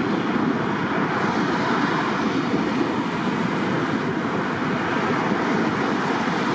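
Steady rushing jet noise from the CFM56 turbofan engines of an Airbus A321-212 on final approach with its landing gear down, holding an even level.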